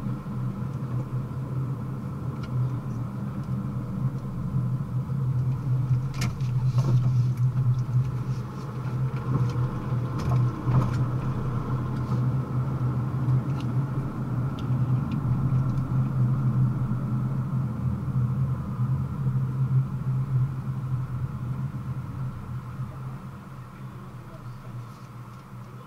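Car road and engine noise heard from inside the cabin while driving: a steady low drone with a few sharp clicks in the middle, growing quieter near the end as the car slows for a red light.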